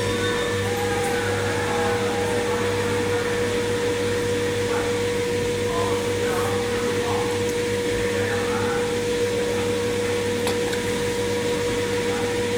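LG washing machine running, a steady motor hum with a high, even whine that holds one pitch throughout.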